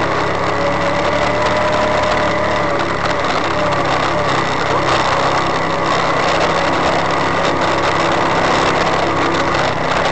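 Engine of a four-seat side-by-side UTV running steadily as it drives along a rough dirt trail, under a steady rushing noise.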